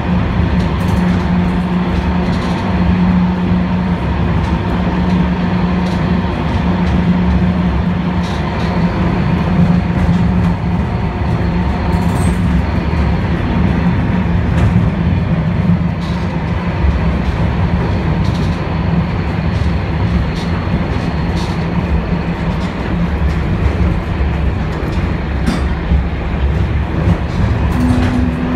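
Vintage M-24 tram running, heard from inside the wooden car: a steady rumble of wheels on rail with a low hum and scattered clicks and rattles.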